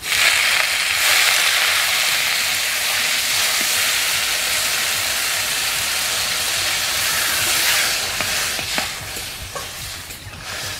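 Water poured into a hot kadai of spiced, oil-fried elephant foot yam and potato, sizzling hard the moment it hits the oil. The hiss starts suddenly, holds for about eight seconds, then dies down as the pan cools, with a few light knocks near the end.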